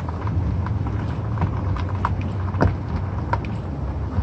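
Wind buffeting a phone's microphone: a steady low rumble, with scattered light ticks and taps on top at an uneven pace, a few a second.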